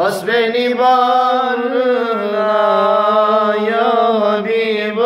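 Unaccompanied male singing of an ilahi, a Turkish Islamic hymn: one long, held melodic phrase with ornamented, wavering pitch.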